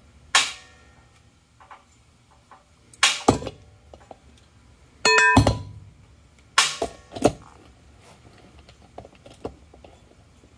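Steel parts of a TH350 automatic transmission, a drum and a small internal piece, knocking and clinking against each other and the bench as they are handled: about six sharp clanks, the one about halfway through ringing briefly like a bell.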